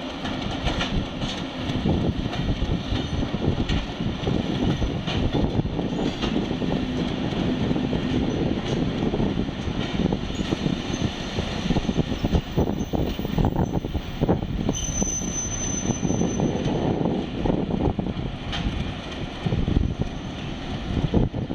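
TGM6 diesel shunting locomotive running with its engine rumbling, its wheels knocking and clattering over the rails as it moves. A brief high-pitched wheel squeal comes about two-thirds of the way through.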